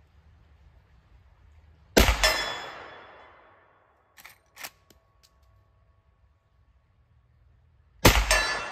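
Two suppressed shots from a Marlin Trapper lever-action rifle in .45-70 Government with a Dead Air Primal suppressor, about six seconds apart, each followed by the ring of the struck steel target dying away over a second or so. Between the shots the lever is cycled with two quick clicks.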